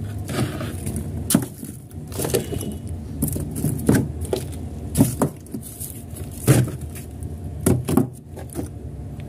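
Frozen blocks of bagged ice knocking and scraping against one another and the frosted freezer wall as they are slid aside by hand: a string of irregular clunks about a second apart over a steady low hum.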